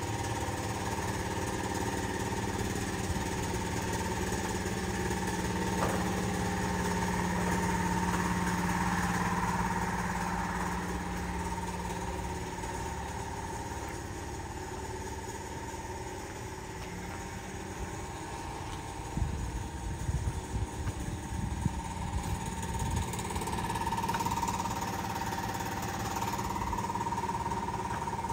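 A 1989 Honda CRX Si's four-cylinder engine idling steadily, with a few uneven low bumps a little past the middle.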